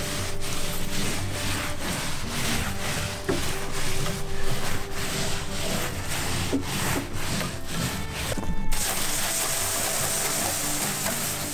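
A cloth rag rubbing over charred Japanese cedar (sugi) siding boards in repeated wiping strokes, cleaning the burnt surface. About nine seconds in it changes abruptly to the steady hiss of a garden hose spraying water onto the wall.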